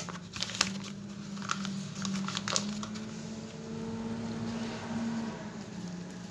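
Foil-lined sheet-mask pouch crinkling as it is handled, with several sharp crackles in the first two and a half seconds, over a steady low hum.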